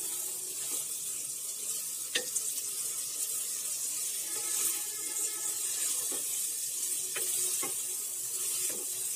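Prawns sizzling in a thick spice paste and coconut milk in a non-stick wok as they are stirred with a wooden spatula, with a few light knocks of the spatula against the pan. This is the kosha stage: the marinated prawns being fried in the masala until they change colour.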